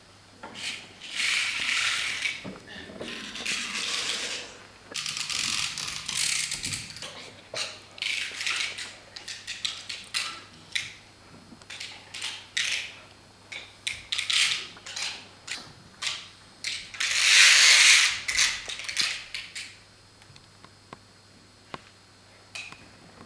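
Performers making live sound effects by hand with everyday stage materials: an irregular series of short raspy scrapes, rips and clicks, with a longer, louder rasping burst about three-quarters of the way through, then only faint scattered clicks.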